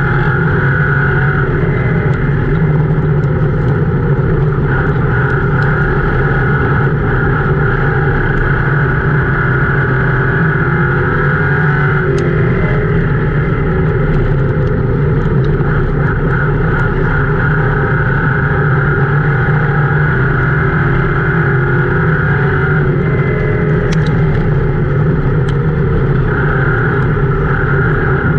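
Ford Crown Victoria's V8 engine at racing speed, heard loud from inside the car's cabin, running hard and steady with its pitch dipping and rising slightly.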